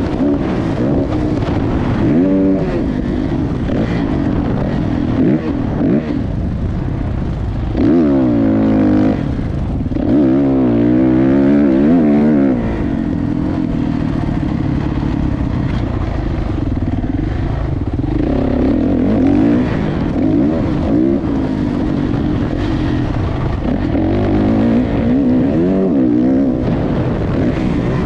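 Motocross dirt bike engines revving up and down, their pitch rising and falling over and over; loudest and fastest-changing about eight to twelve seconds in.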